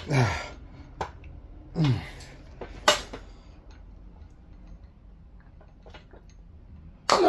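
Two short strained grunts falling in pitch, one at the start and one about two seconds in, as a polyurethane bushing is forced onto a car's control arm by hand. A sharp click about three seconds in, with a fainter one about a second in.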